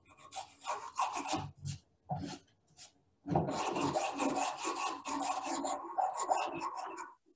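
A steel chisel scraping leftover glue off the end of an oar shaft. It comes in short separate strokes at first, then a quick, unbroken run of scrapes from about halfway in until just before the end.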